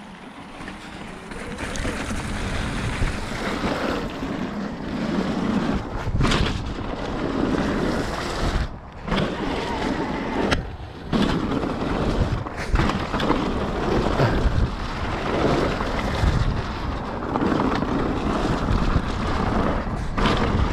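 A mountain bike riding down a trail at speed: wind rushing over the microphone and tyres rolling on the dirt, with scattered knocks and rattles from the bike. The noise builds over the first two seconds as the bike picks up speed, and briefly drops out twice in the middle.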